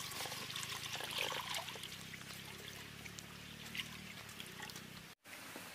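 Water poured from a pot into a kadhai of cooking chicken, a steady trickling splash into the gravy. It cuts off abruptly about five seconds in.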